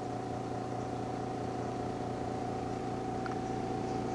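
A motor running steadily: a low hum with a constant high whine that does not change. There is a faint click about three seconds in.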